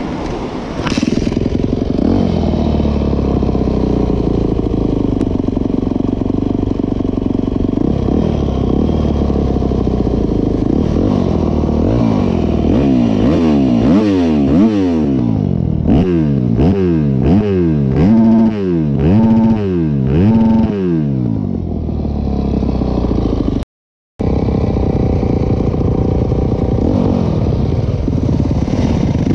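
Yamaha YZ250F dirt bike's single-cylinder four-stroke engine running under the rider, heard from the on-board camera. Through the middle the engine note climbs and drops again and again as the throttle is opened and closed, then it runs at a steadier pitch after the sound cuts out for a moment near the end.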